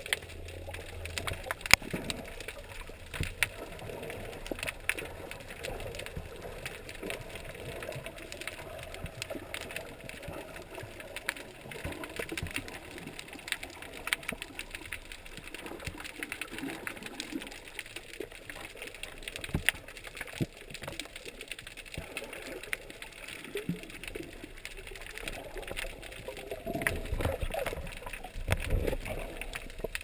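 Underwater sound picked up by the camera: a constant crackle of scattered sharp clicks over a hiss of moving water. Louder low sloshing comes in near the end as the camera nears the surface.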